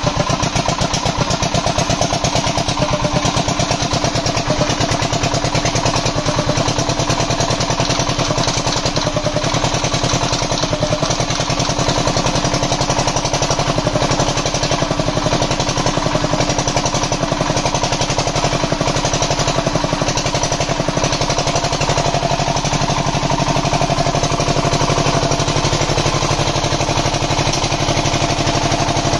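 Diesel generator engine running steadily, a fast, even knock of firing strokes. It had refused to start because of a slight leak at the injector nozzle's washer, and the nozzle has now been tightened.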